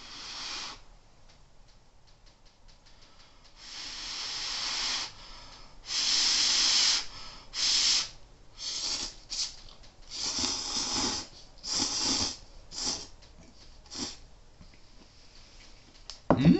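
Hot instant ramen noodles being slurped from a bowl with chopsticks: about ten hissing slurps, some lasting about a second and others short. Near the end comes a brief, louder vocal sound that rises in pitch.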